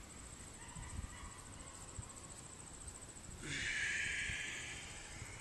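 Insects chirping steadily in a high, fast-pulsing trill. About three and a half seconds in, a long breathy exhale hisses out suddenly and fades over a second and a half, the out-breath of a cat-cow breathing cycle.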